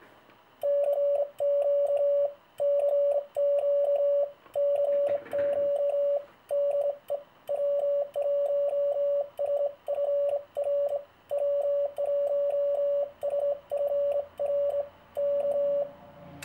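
Morse code sent by hand on a brass sideswiper/paddle key, heard as a transceiver's sidetone: one steady mid-pitched beep keyed on and off in dots and dashes from about a second in until near the end, with faint clicks along with the tones.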